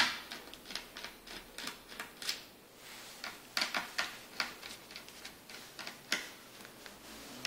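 Small screwdriver clicking and tapping against the screws and metal hard-drive caddy of a laptop as the screws are undone: a run of irregular sharp clicks, the loudest right at the start.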